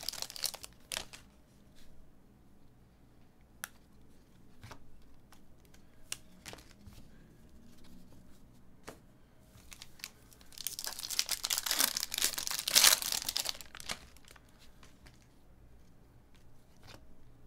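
Hands handling an opened foil trading-card pack and its stack of chrome cards: scattered soft clicks and rustles, then a loud stretch of crinkling and tearing from about ten to fourteen seconds in.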